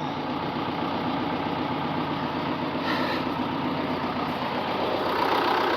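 Farm tractor engine idling steadily, growing a little louder near the end.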